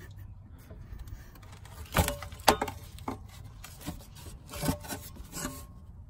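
Hands rubbing and handling a heavy twin-disc bus clutch's disc and pressure plate, with several sharp knocks. The two loudest knocks come about two seconds in and half a second apart.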